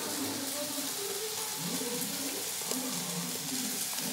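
Scissors snipping open a foil seasoning sachet, a few faint short clicks over a steady sizzling hiss of frying.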